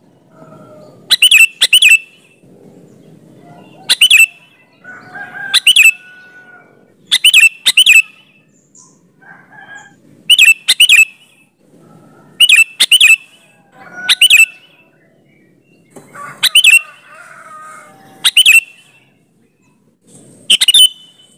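Sooty-headed bulbul (kutilang) singing in lively bursts of short, sharp, loud notes. The notes often come in quick pairs and repeat every second or two, with softer chattering in between.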